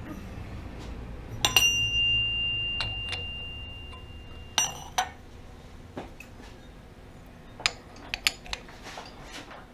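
Steel tooling clinking on the machine spindle while the end-mill holder is tightened with a Tommy bar: a sharp metal clink sets a part ringing with one high, clear tone for about three seconds until a second knock damps it, then several lighter metal clicks and taps.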